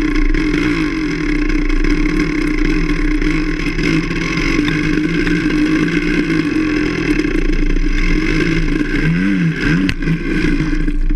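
Enduro motorcycle engine running under steady throttle while riding, its revs rising and falling quickly a couple of times near the end.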